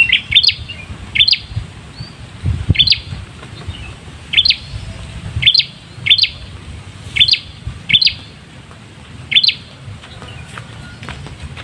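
Prenjak kepala merah calling: short, sharp rising chirps in pairs and threes, repeated about once a second, stopping near the end.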